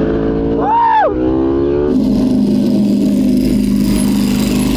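Ducati Panigale V4 R WorldSBK superbike's 998 cc V4 engine under hard acceleration, its pitch climbing slowly. About two seconds in, the sound switches to the bike running steadily at low speed.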